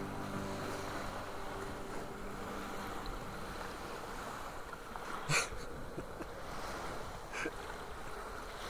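Steady wash of sea surf and wind, with one short sharp sound about five seconds in.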